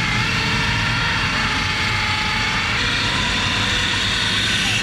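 Racing kart engines running at speed on the dirt oval, a steady, dense, high buzz that cuts off abruptly near the end.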